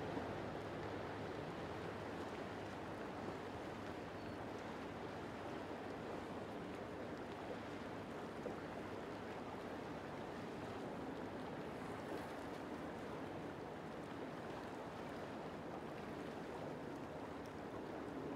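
Steady rushing of water and waves with the low hum of a boat's motor underneath, holding even throughout.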